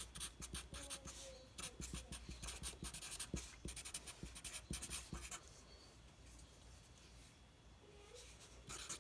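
Marker scratching across paper in quick strokes as words are written. The strokes stop about five and a half seconds in, leaving a quieter stretch, and start again near the end.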